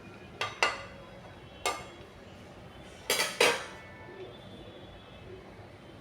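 Metal kitchen utensils clinking against metal cookware: about six sharp clinks, each ringing briefly. They come in a pair near the start, one more under two seconds in, and a quick cluster of three a little after three seconds in, which is the loudest.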